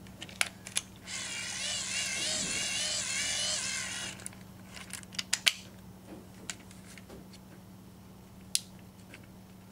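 Wind-up radio's hand-crank dynamo being wound: a whirring gear-train sound whose pitch wavers with the turning speed, lasting about three seconds. Plastic clicks from unfolding and folding the crank handle come before and after it.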